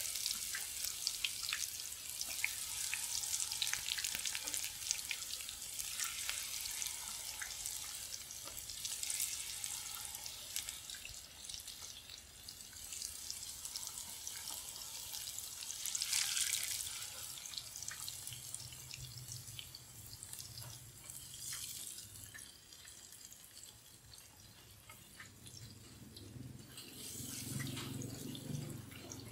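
Batter-coated breadfruit sticks deep-frying in hot oil: a steady sizzle full of small pops and crackles. There is a louder burst about sixteen seconds in, and it is quieter in the last part.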